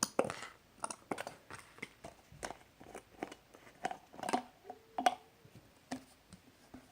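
Plastic hand sanitizer bottle being squeezed and handled, making a run of short, irregular clicks and squishes, about one or two a second. The gel is not coming out easily.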